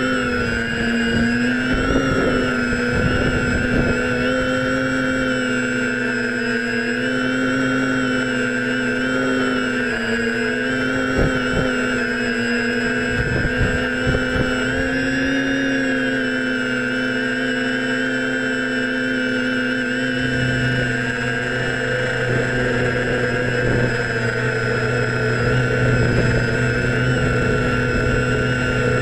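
Hexacopter's six brushless motors and propellers whining steadily, heard from a camera mounted on the frame, with several tones that waver slightly in pitch as the throttle changes. Wind rumbles on the microphone in the first half.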